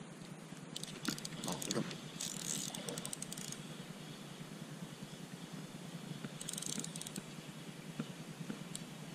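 Handling of a light spinning rod and reel: a cluster of clicks and rattles about a second in, with two short rushes of hiss about two and six and a half seconds in, over a steady low hum.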